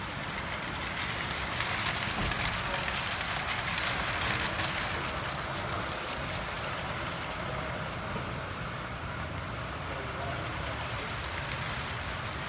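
Steady hall background noise with indistinct voices, and a light rattle and clicking of LEGO trains running on plastic track, busiest in the first few seconds.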